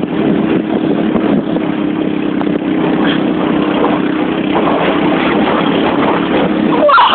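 Quad bike (ATV) engine running steadily under load as it tows a canoe, with a rough noisy wash over the engine tone. Near the end comes a short, louder sound whose pitch wavers.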